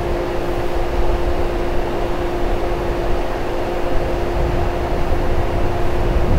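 Stationary Shinano Railway 115-series electric train idling, its equipment giving a steady hum with a whine of a few held tones over a low rumble.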